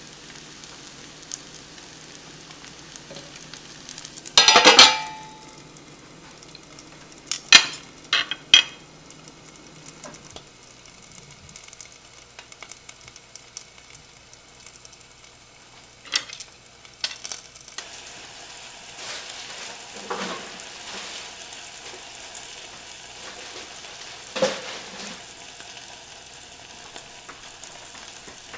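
Bánh xèo batter frying in a nonstick pan with a steady sizzle. About four and a half seconds in, a stainless steel lid clatters onto the pan with a brief metallic ring, followed by a few sharper knocks.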